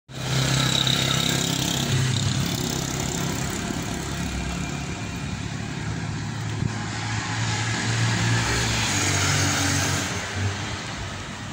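Street traffic: car engines humming and tyres rushing on a city road, with one passing vehicle swelling and dropping away about ten seconds in.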